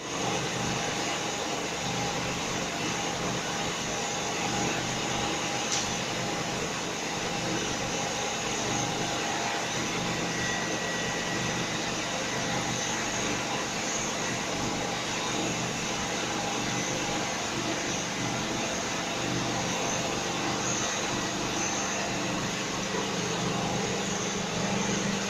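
A 5/8-inch PVC pipe-making machine running steadily: a continuous mechanical whir at an even level, with a faint steady whine.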